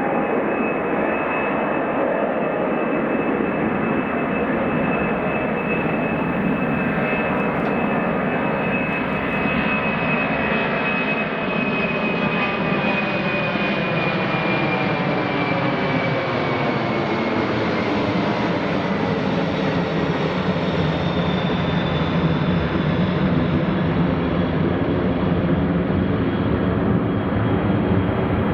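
Boeing 747-400F freighter's four jet engines at takeoff thrust, loud and steady. A high fan whine slowly falls in pitch over the first half as the aircraft passes, and the sound takes on a sweeping, phasing quality later on.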